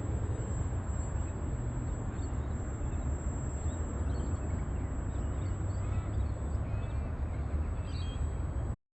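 Steady low rumbling noise, with faint bird chirps, several short calls in the second half. A thin high steady whine runs underneath.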